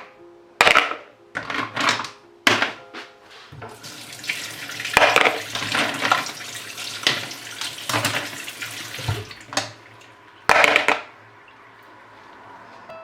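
Water running from a kitchen tap into a sink, with repeated clattering knocks, loudest in the first few seconds and again about ten seconds in.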